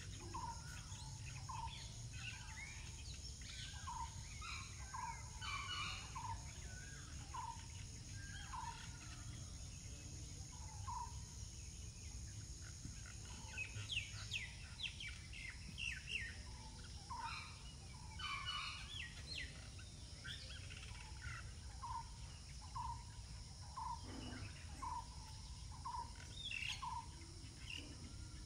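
Several birds calling in the open: one repeats a short, mid-pitched note about once a second, while others chirp in quick, higher notes. A steady low rumble runs underneath.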